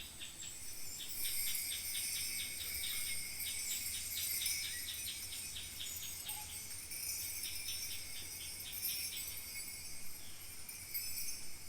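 Kaskawillas, Mapuche bronze bells, shaken in a steady jingling rhythm of about four to five strokes a second, imitating the sound of falling water; the shaking pauses briefly about two-thirds of the way through.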